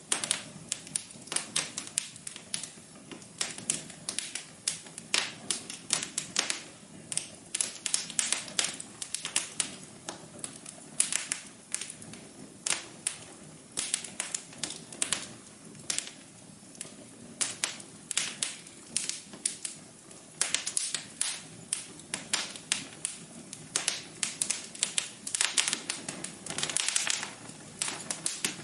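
Wood fire burning in a fireplace, crackling with dense, irregular sharp pops and snaps over a soft steady hiss of the flames.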